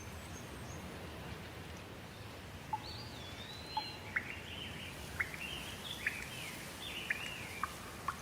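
Birdsong over a steady hiss of rain. From about three seconds in, a bird sings a string of gliding whistles and short sharp chirps.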